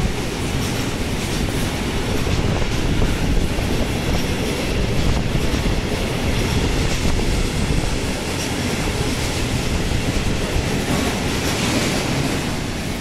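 Long freight train of intermodal wagons loaded with semitrailers rolling slowly past, its steel wheels giving a steady rumble and clatter on the rails.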